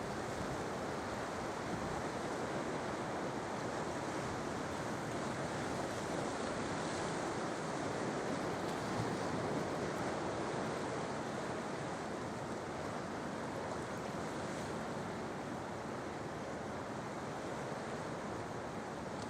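Sea waves washing onto the shore: a steady rush of surf that swells a little around the middle and eases again.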